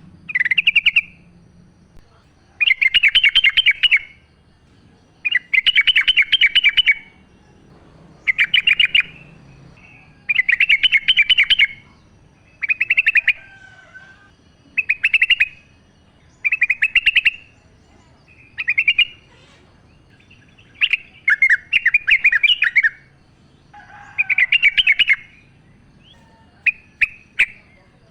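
Yellow-vented bulbul (trucukan) singing: short, bubbly phrases about a second long, repeated roughly every two seconds, with a few sharp single notes near the end.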